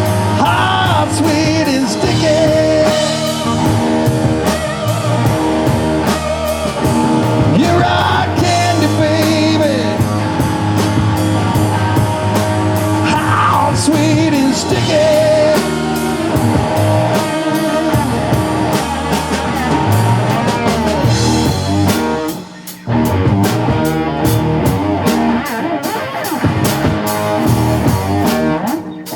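Live rock band playing with electric guitar, bass, drum kit and a singer. About three quarters of the way through the band stops for a moment, then comes back in on a run of steady drum hits.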